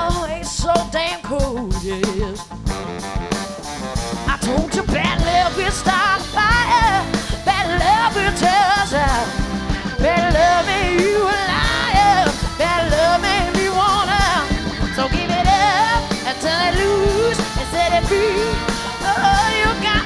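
Live band playing: a woman singing lead over electric guitar, bass guitar, drum kit and a horn section of saxophone and trumpet, with a steady beat.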